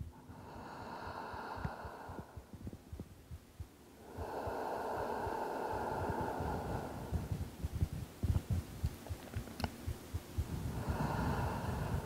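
A woman breathing slowly and deeply: three long, soft breaths, the middle one the longest and loudest, with low soft thumps underneath.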